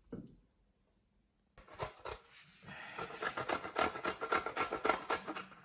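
A brief thump, then from about a second and a half in a quick, rhythmic run of scraping or rubbing strokes, several a second.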